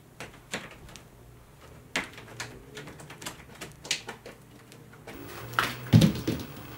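Munchkin cat's claws clicking and scraping on a homemade carpet-covered scratching board, in irregular sharp taps. A louder thump comes about six seconds in.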